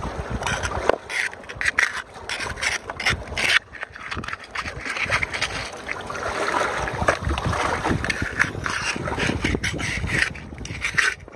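Metal hand trowel digging and scraping into wet, rocky gravel, with a run of irregular scrapes and knocks against stones.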